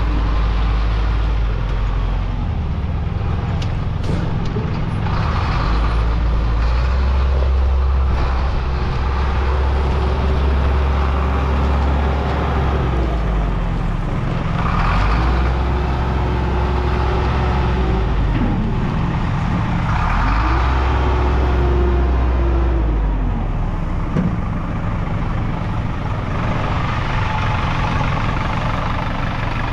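Caterpillar 910 wheel loader's diesel engine running, revving up three times for several seconds each. A steady whine comes in with the revs.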